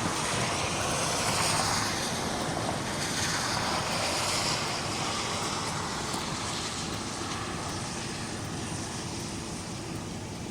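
A steady rushing noise, like wind or passing traffic, that slowly fades over the last few seconds.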